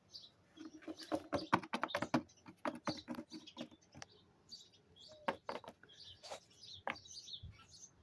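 Wild birds chirping throughout, with a quick run of clicks and taps over the first few seconds and a few more in the middle: plastic toy figures being picked up and moved across a hard surface.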